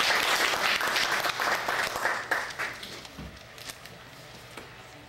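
Audience applauding, a dense patter of many hands clapping that fades away about three seconds in.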